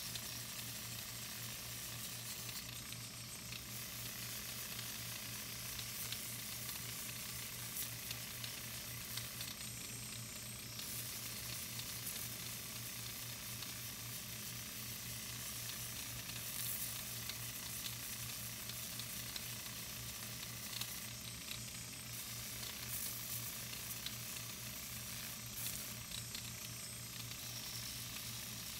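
220-grit sandpaper on a spinning rubber contour sanding mandrel in a Foredom flex-shaft handpiece, sanding a wooden knife handle with a steady hiss over a low motor hum. The hiss turns harsher now and then as the wood is pressed to the paper.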